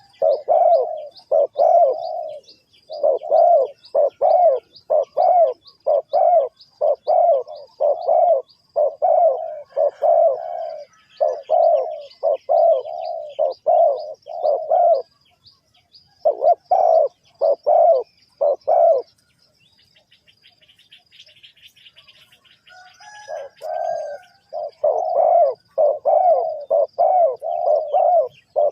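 Spotted dove cooing over and over in steady runs of notes. The calls stop for a few seconds about two-thirds of the way through, then start again. A thin, high chirp repeats steadily above the coos.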